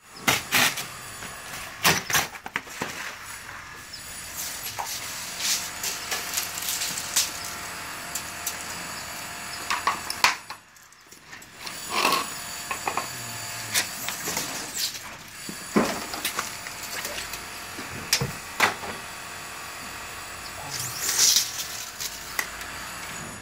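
Scattered knocks, cracks and scrapes of old wood being pulled loose from a door header and handled, busiest in the first few seconds.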